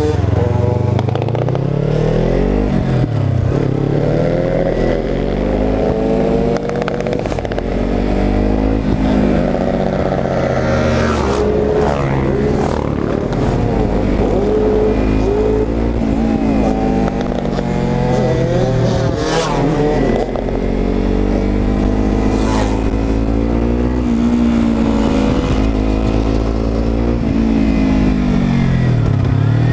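Kawasaki motorcycle engine under way, its pitch climbing and dropping again and again as the rider accelerates and changes gear, with wind rushing over the microphone.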